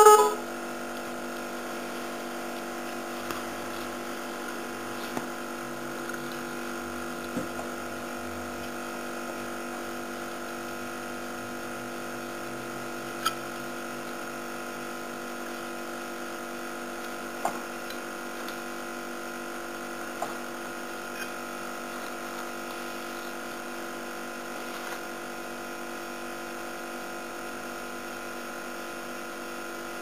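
A multi-tone telolet car horn's tune cuts off right at the start, leaving a steady electrical hum. A few light clicks and knocks come as the plastic horns and controller are handled, the sharpest about 13 and 17 seconds in.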